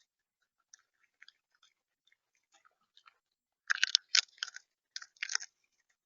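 Bird at the feeder pecking and cracking seed close to the camera's microphone: scattered light clicks, then two bursts of loud rapid taps and crunches about four and five seconds in.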